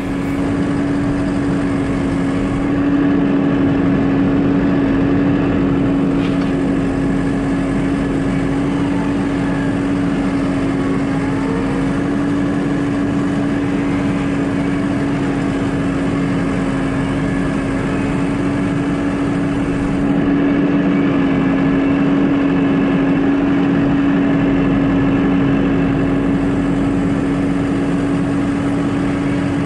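Farm tractor engine running steadily, heard close up from on the tractor, a constant drone that gets slightly louder twice.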